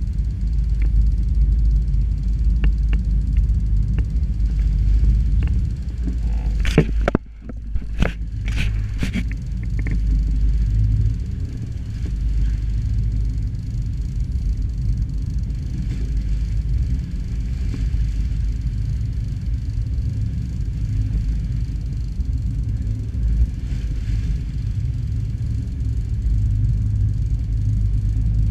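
Steady low rumble of wind buffeting a camera microphone on an open boat at sea, with a few faint clicks and a brief cut-out about seven seconds in.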